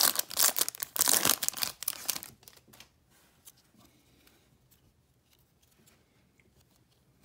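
A baseball card pack wrapper being torn open and crinkled, stopping about two seconds in, after which there is only faint handling of the cards.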